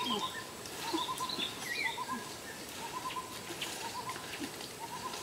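Birds calling: a run of three or four quick low notes repeats about once a second, with higher chirps and short gliding whistles from other birds over it.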